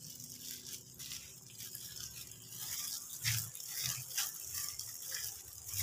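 A hand in a thin plastic glove squeezing and stirring wet wingko dough of glutinous rice flour and grated coconut in a bowl: soft, irregular squishing and scraping, with a few dull thuds about three to four seconds in.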